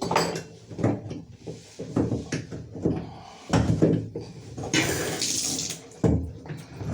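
Metal socket and wrench clinking and scraping against a shower valve's push-button diverter, a series of short knocks, with a brief hiss about five seconds in.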